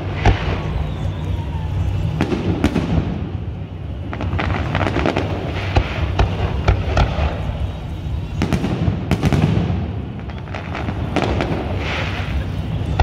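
Aerial fireworks display: shells bursting, followed by dense crackling from crackle stars, coming in repeated clusters of sharp pops over a steady low rumble.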